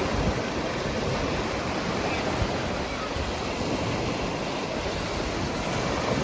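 Sea waves washing steadily onto a sandy beach, with wind buffeting the microphone.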